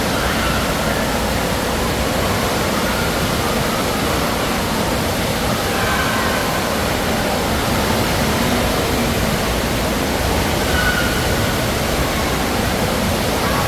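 Steady rush of water in an indoor waterpark wave pool, a loud even noise throughout, with faint distant voices now and then.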